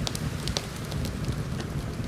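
Wood fire crackling in a fireplace: scattered sharp pops and snaps, two louder ones at the start and about half a second in, over a low steady rumble.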